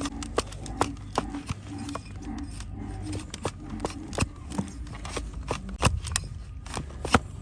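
A hoof trimmer's blade cutting and shaving a donkey's hard hoof horn: a run of crisp, irregular snaps and scrapes, several a second, with the sharpest cracks a little before the end.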